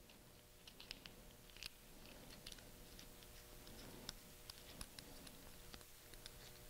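Faint, scattered light clicks and scrapes as a tethered turret cap is screwed back onto an Atibal MROC 3x32 rifle scope, starting about a second in.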